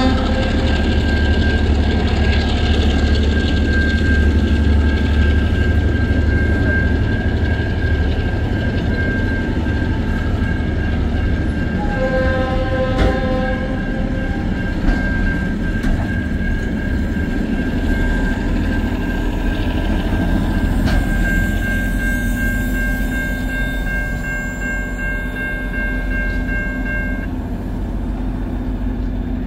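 Freight train wagons rolling past with a heavy low rumble and a steady high-pitched squeal from the running gear. There are a few single clicks from the wheels over the rail. The squeal stops near the end and the rumble eases as the last container wagons go by.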